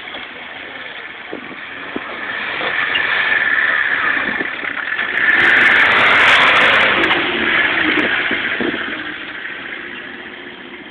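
Off-road jeep's engine running under load as it climbs the dirt track and passes close by. It grows louder to a peak a little past halfway, then fades as the jeep moves away.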